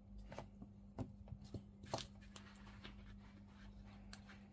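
Faint small clicks and taps of a 3D-printed plastic model part and hobby tools being handled, the sharpest about one and two seconds in, over a steady low electrical hum.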